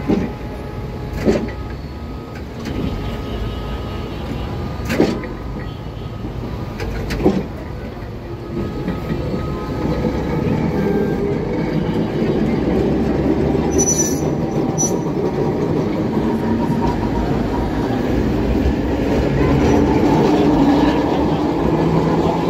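Old blue-and-cream Alexandria Raml tram passing close by, its steel wheels rumbling on the rails. A few sharp knocks come in the first seconds, and the rumble grows steadily louder through the second half as the cars go past.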